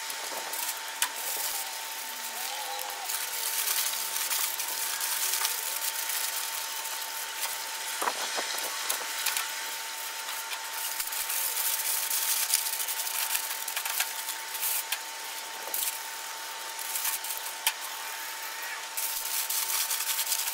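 Sheet of aluminium foil crinkling and crackling as it is handled and folded, with many small clicks, over a faint steady tone.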